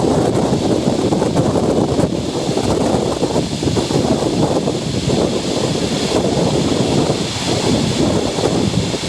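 Diesel-hauled passenger train running, heard as a steady, fluctuating rumble and rushing noise with no brake squeal.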